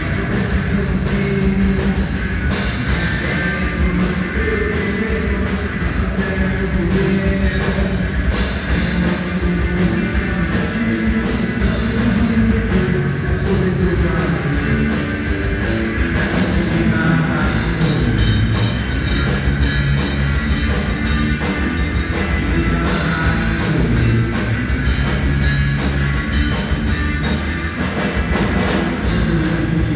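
Live rock band playing a song, with electric guitar, bass and drum kit.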